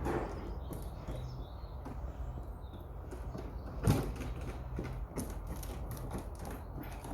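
Scattered knocks, clicks and creaks, with one loud thump about four seconds in, over a steady low hum.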